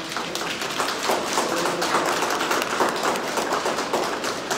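Small group of people applauding.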